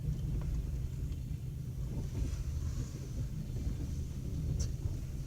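Steady low rumble of a passenger train carriage heard from inside, with a few faint clicks, the clearest near the end.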